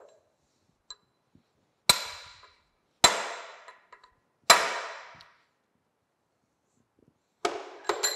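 Hammer striking a brass drift to drive a tapered pin home into a gear shaft: three hard metal blows, each ringing briefly, a second or so apart, then a few lighter metal knocks near the end.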